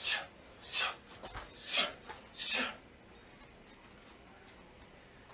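Four short rasping hisses less than a second apart, then quiet, from a person drilling muay thai elbow and knee strikes.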